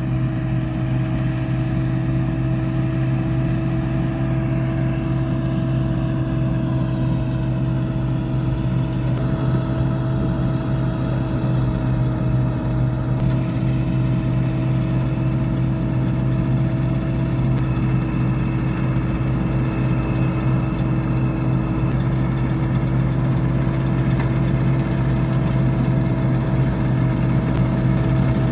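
Combine harvester running at a steady engine speed: a constant heavy drone with steady whining tones above it, cutting in suddenly at the start.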